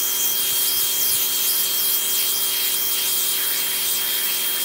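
Pressure washer spraying water onto a pop-up camper's aluminum roof: a steady hiss of the jet on the surface with a thin steady whine underneath. It cuts off suddenly just before the end.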